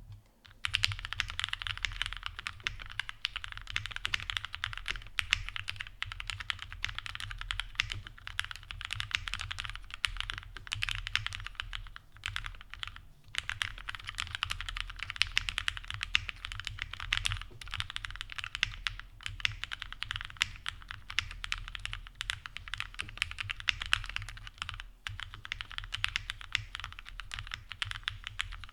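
Continuous fast typing on a plateless 7V by Gok 75% custom mechanical keyboard with lubed and filmed Gateron Lion linear switches and GMK keycaps, a sound described as creamy and marbly. The typing breaks off briefly about 12 and 25 seconds in, over a steady low hum.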